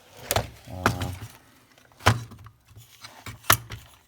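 Hard plastic seat-belt mechanism parts knocking and clicking as they are handled, with three sharp knocks, about a second and a half apart, standing out.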